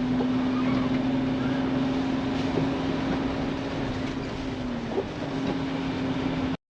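A Jeep running while driving, heard from inside the cabin: a steady drone that dips slightly about four and a half seconds in. It cuts off abruptly just before the end.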